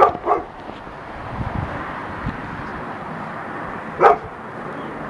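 Three short, loud calls: two in quick succession at the start and one about four seconds in, over a steady hiss.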